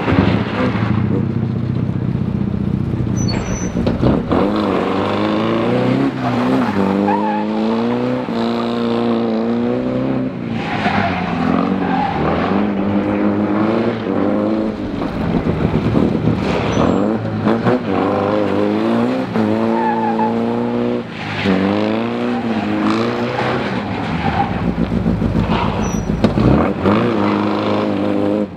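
Pre-war vintage sports car engine revving hard, the revs climbing and dropping over and over as the car accelerates, slows and turns between cones in a timed driving test.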